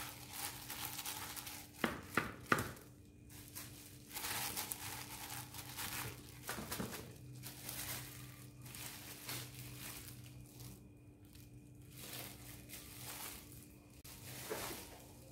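Plastic-gloved hands dredging chicken pieces through dry seasoned flour in a metal bowl: crinkling and rustling in irregular stretches, with a few sharp knocks about two seconds in. A faint steady hum runs underneath.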